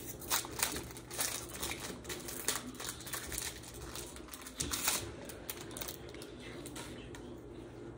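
Pokémon trading cards being handled, with quick light clicks and crinkles through the first five seconds or so, then quieter.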